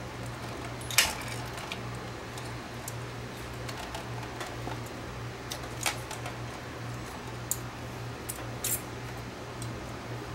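Scattered small clicks and taps of metal and plastic parts as a Nakamichi DR2 cassette deck's tape transport mechanism is handled while a new capstan belt is worked around its pulleys. The sharpest click comes about a second in, and a steady low hum runs underneath.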